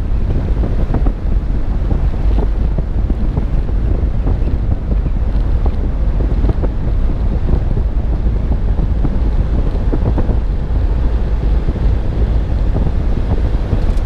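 Wind buffeting the microphone of a car-mounted GoPro while driving, over a steady low road rumble, with scattered small ticks and knocks.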